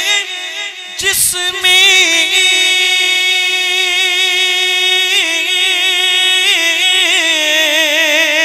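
A man's voice singing a naat unaccompanied into a microphone, drawing out long wavering notes. The singing breaks briefly with a short noise about a second in.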